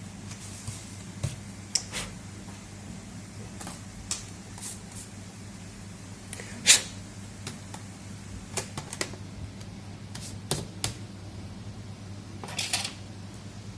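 Irregular clicks and taps of plastic laptop parts being handled and pried during disassembly of a Dell Latitude E5430, with one sharp, louder click about seven seconds in and a short scrape near the end, over a steady low electrical hum.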